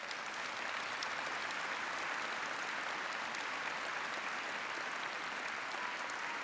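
A large audience applauding: dense, steady clapping that has built up just before and holds at an even level.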